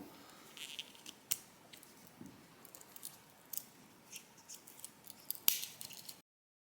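Small clicks and light metal scrapes from handling a Victorinox Swiss Army Manager keychain knife, with a sharper click about five and a half seconds in. The sound then cuts off suddenly.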